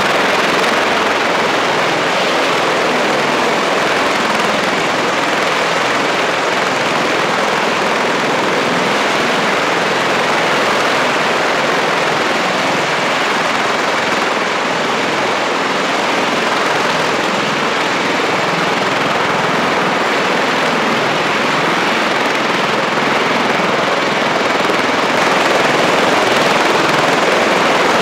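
CH-53E Super Stallion heavy-lift helicopter running on the ground, its three turboshaft engines and seven-blade main rotor making a loud, steady roar of turbine and rotor noise that grows a little louder near the end.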